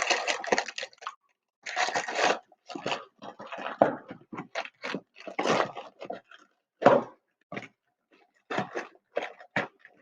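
A measuring cup scooping and scraping through dry Bisquick baking mix, making a string of short, irregular crunchy scrapes.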